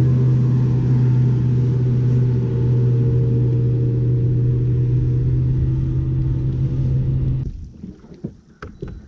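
Bass boat's bow-mounted electric trolling motor running with a steady low hum. It cuts off suddenly about seven and a half seconds in, leaving a few light clicks near the end.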